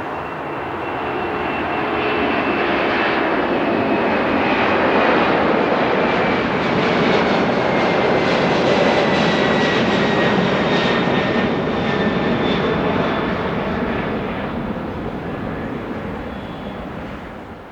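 Jet airliner passing by, its engine noise swelling for a few seconds, holding for several more and then fading, with a high whine that slides slowly down in pitch as it goes.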